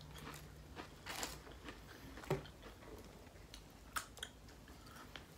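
Quiet chewing and biting of fried fast food, with a few soft crunches and clicks scattered through.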